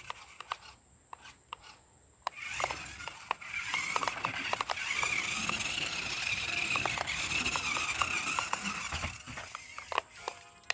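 BEZGAR toy RC crawler's small electric drive motor and gears whining as it drives over grass, with scattered clicks and ticks. The motor starts about two seconds in, runs steadily and dies away near the end.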